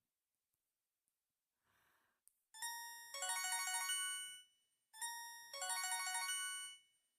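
LG enV cell phone playing one of its built-in ringtones: a short electronic chime melody, a held note followed by a quick run of notes, heard twice in a row, starting about two and a half seconds in.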